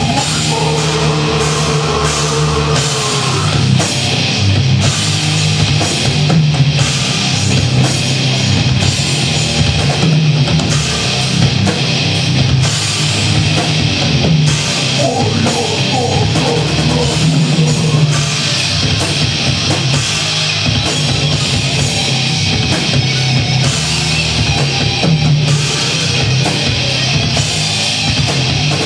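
Heavy metal band playing live: distorted electric guitars, bass guitar and drum kit.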